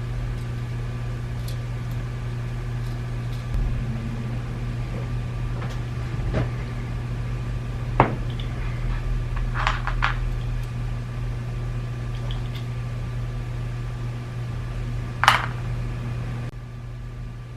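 A few sharp plastic clicks and taps from small parts being handled, the loudest two about eight seconds in and near the end, over a steady low hum.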